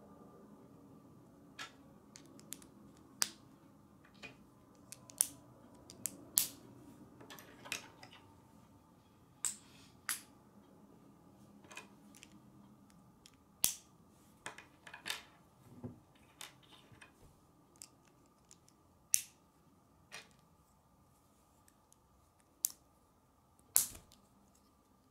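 K'nex plastic rods and connectors being handled and snapped together by hand: irregular sharp clicks and snaps, some much louder than others.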